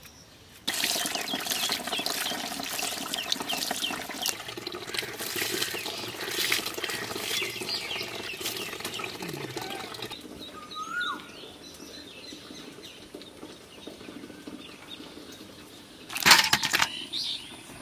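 Water splashing and sloshing as fish are washed by hand in a metal bowl, starting suddenly and lasting about ten seconds before it stops. Birds chirp in the quieter stretch after it, and a short loud burst comes near the end.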